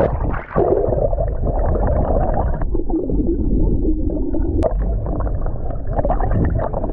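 Muffled gurgling and sloshing of sea water over a steady low rumble.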